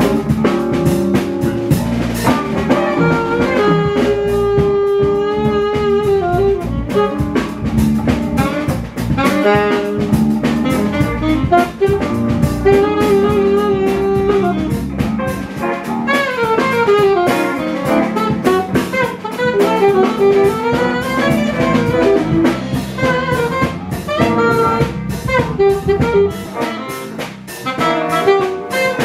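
Live band playing jazz: a saxophone plays melodic lead lines over electric guitar, electric keyboard and drum kit.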